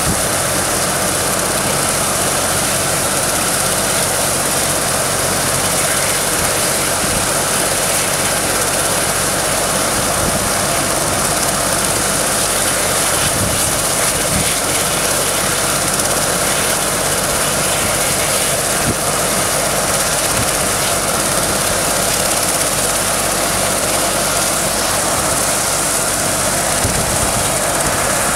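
Medical helicopter running on the ground with its main rotor turning: a steady turbine whine and hiss over a low hum, even throughout.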